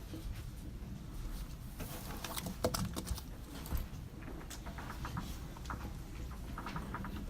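University library room ambience: a low steady hum with scattered small clicks and taps from people working at desks, and one sharper tick a little under three seconds in.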